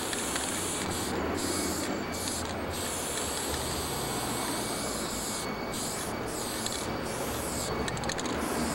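Aerosol spray-paint can hissing in long bursts with several short breaks, as a large area of a wall is filled in with paint.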